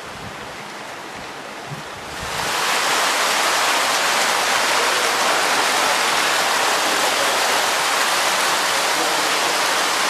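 Water gushing steadily from inflow pipes into koi tanks, a loud even splashing that starts suddenly about two seconds in. Before it, a quieter outdoor hush with a few low thumps.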